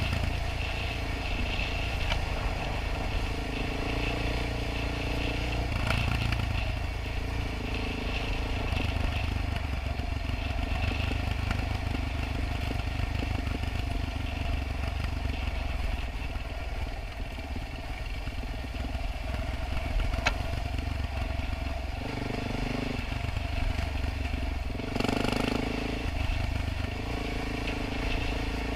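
Quad bike (ATV) engine running under way on a rough dirt trail, its revs rising and falling with the throttle several times.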